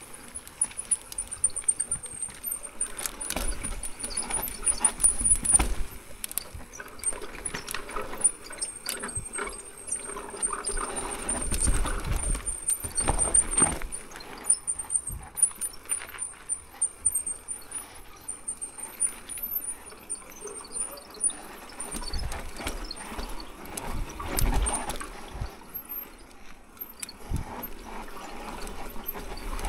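Mountain bike riding down a rough dirt and rock trail: tyres rolling and skidding, with repeated knocks and rattles from the bike. Wind rumbles on the bike-mounted or helmet camera's microphone, and a thin high whine wavers through most of the ride.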